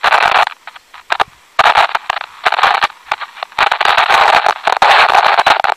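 Small transistor AM radio's speaker giving bursts of static hiss and crackle as the tuning dial is turned between stations. The noise cuts in and out abruptly, with sharp clicks in the gaps.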